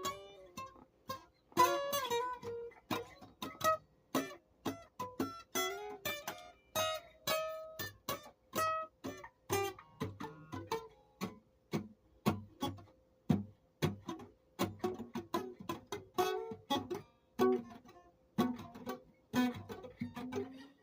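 Instrumental guitar music: notes plucked one after another in a steady run, a few of them slid or bent in pitch.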